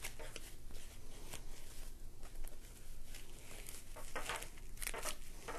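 Hands handling a nylon-strap dog harness and its neoprene sleeves: soft rustling with scattered light clicks, and a few louder scuffs about four and five seconds in.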